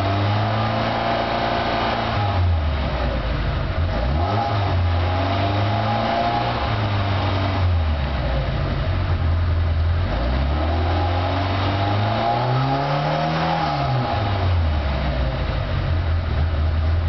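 Tuned VAZ classic four-cylinder engine with an OKB 680 camshaft, skimmed head and lightweight flywheel, heard from inside the cabin. The revs are held around 3000 rpm, drop and climb again about three times, and settle lower near the end.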